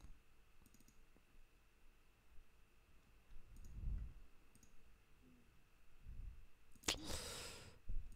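Faint computer mouse clicks and keystrokes from editing code at a desk, a few scattered clicks over low room tone. A brief rush of noise comes near the end.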